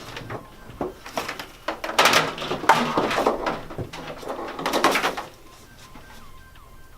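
Clicks, knocks and rustling as electrical plugs and cords are handled at an outlet.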